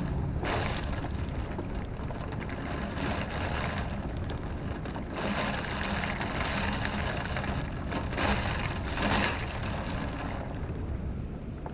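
Wind-driven rain beating against a window, with a steady low rumble of wind underneath. The hiss of the rain swells in gusting spells every second or two, then eases off near the end.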